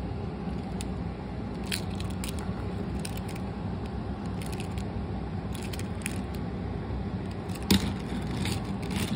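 Light clicks and rubbing of a small Bandai TECS toy engine being turned over in the hands, over a steady low hum. A sharper knock comes about three-quarters of the way through, as it is set down on a wooden table.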